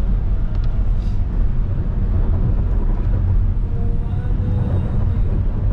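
Steady low rumble of a moving car, engine and road noise, heard from inside the cabin.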